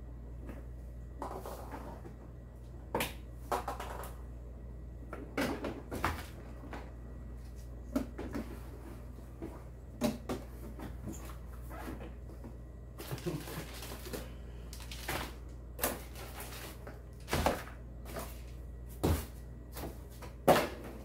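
Irregular knocks, clicks and rustles of a large plastic RC truck body shell being handled, worked free of its chassis and lifted off.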